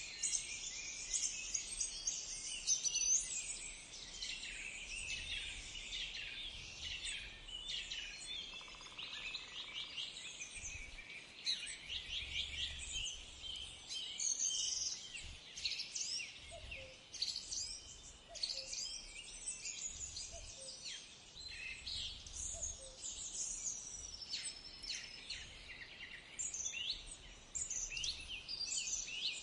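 Birds chirping and singing: a steady outdoor chorus of many short, high calls overlapping one another, with a few lower short calls in the middle.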